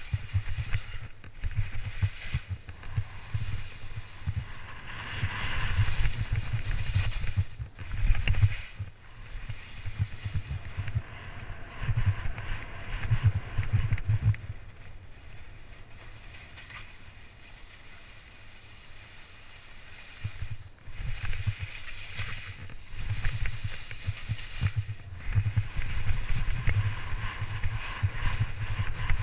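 Wind buffeting a helmet-camera microphone on a fast ski descent, with ski edges scraping and chattering over hard, suncupped summer snow. The noise eases off for a few seconds in the middle, then builds again.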